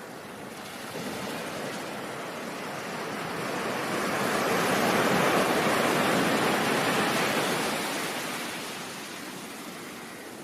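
Ocean surf as a steady rushing wash: one wave swells up over several seconds, is loudest around the middle, then drains back down.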